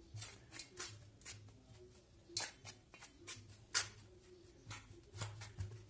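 A metal spoon stirring dry flour in a steel bowl: soft irregular scraping and rustling strokes, with a few sharper clicks as the spoon knocks the bowl.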